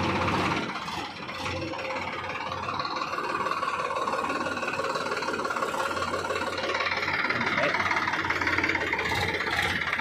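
Sonalika DI 745 III tractor's diesel engine running steadily at a low, even speed.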